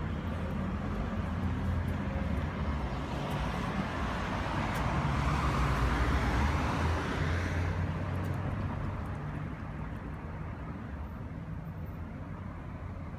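Street traffic: a steady low rumble, with a motor vehicle passing close by that swells to its loudest about six seconds in and fades away by about eight seconds.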